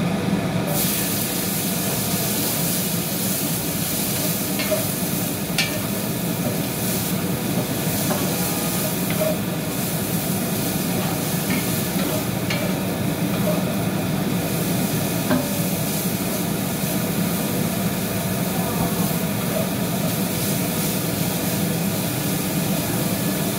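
Broccoli sizzling in a hot pan. The sizzle starts about a second in, as it goes in, and goes on as it is stir-fried with a wooden spatula, with now and then a scrape or knock of the spatula on the pan, over a steady low hum.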